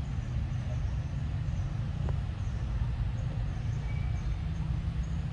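Steady low rumble of outdoor background noise, with a faint short chirp about four seconds in.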